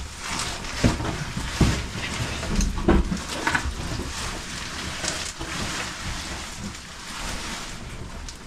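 Irregular scraping and rustling of a caver's muddy suit and helmet rubbing against rock while crawling through a tight cave squeeze, with scattered knocks and scuffs.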